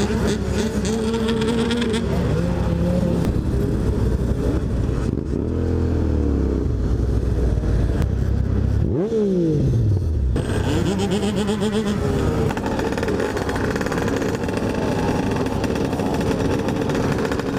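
A group of motorcycle engines idling and revving, with pitches rising and falling as bikes rev and pull away. About nine seconds in, one engine's note drops sharply in pitch.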